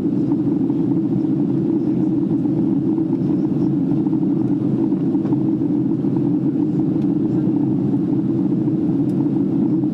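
Steady, loud cabin noise inside a Boeing 767 airliner in flight: an even, low rumble of engines and airflow.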